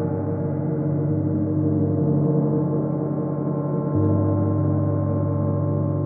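A 31-inch Chinese white gong played with a soft felt mallet, ringing in a sustained wash of many overlapping tones. The low hum swells about four seconds in.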